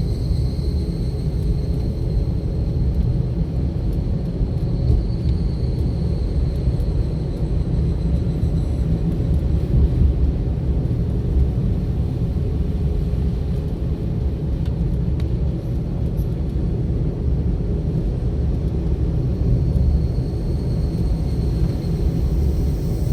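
A car driving along a road, with a steady low rumble of engine and tyre noise picked up by an in-car camera.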